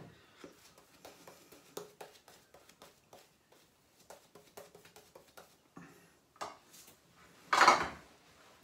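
Razor scraping stubble on the neck in a run of short, faint, scratchy strokes during a quick touch-up. One louder, short burst of noise comes near the end.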